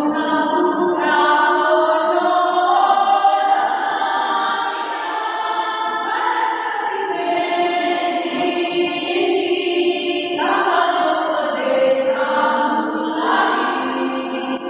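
Choir singing in several parts, holding long notes that move from one pitch to the next.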